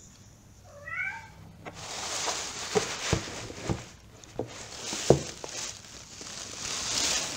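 A short cat meow about a second in, followed by rustling and several knocks as a moulded plastic Eames-style chair seat shell is handled and turned over amid plastic wrapping.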